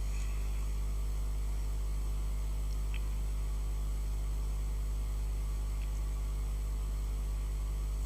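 Steady electrical mains hum with a low buzz, unchanging throughout, with a couple of faint ticks.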